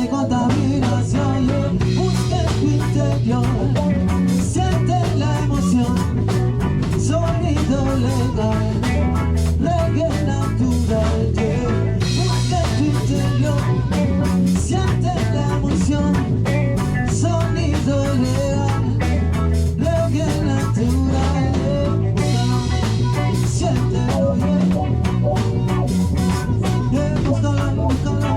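Ska-reggae band playing an instrumental passage: drum kit keeping a steady beat under bass and guitar.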